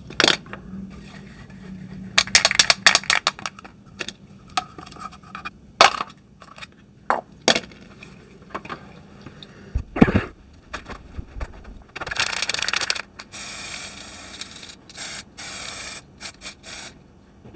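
Handling noises and a quick rattle of clicks, then several hissing bursts, each about a second long, of paint being sprayed to lay the dark-brown coat over a masking-tape camo pattern.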